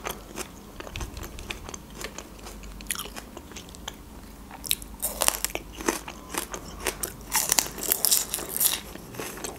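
Close-miked eating sounds: a person chewing, then biting into fresh green onion with crisp crunches that come thick and fast in the second half.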